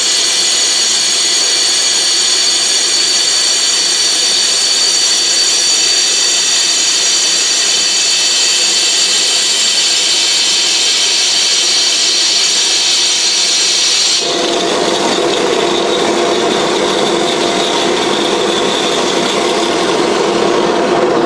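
Angle grinder hollowing out a 16-inch glass mirror blank, running continuously with a high motor whine over rough grinding noise. About 14 seconds in the high whine drops away abruptly and a lower, rougher grinding sound takes over.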